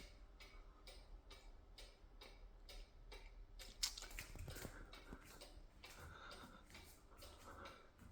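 Black Forest cuckoo clock ticking faintly and steadily, with one sharper click a little before halfway.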